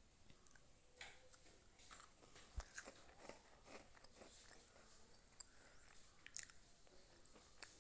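Faint, scattered soft clicks and crunches of raw green mango pieces being dropped and pressed by hand into a steel mixer-grinder jar.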